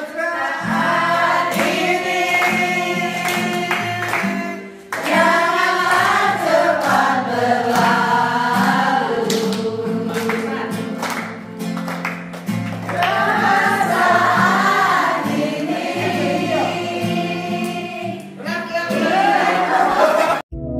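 A large group of voices singing together to a strummed acoustic guitar, with hand clapping along.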